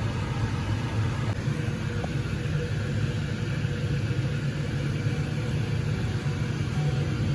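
Steady low hum of a running kitchen appliance motor, even and unchanging.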